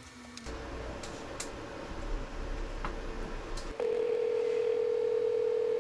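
A steady telephone line tone, as of a call ringing out, much louder for about the last two seconds, with a few faint clicks over a low rumble.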